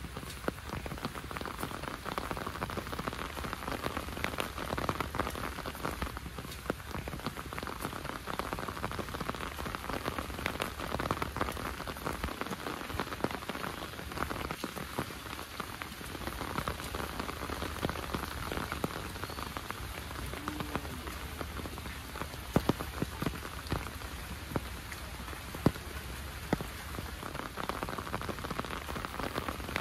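Heavy rain falling: a steady dense patter of drops with sharper single drop hits, a few of them louder in the second half.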